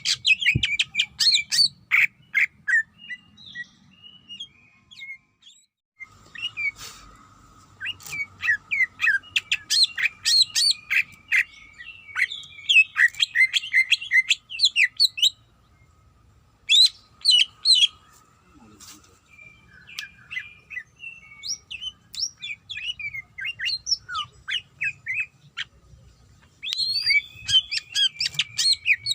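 Cucak ijo (green leafbird) singing a rapid, varied string of high chirps, whistles and trills in bursts, with brief pauses about a sixth of the way in and about halfway through: a challenging song that calls out a rival male.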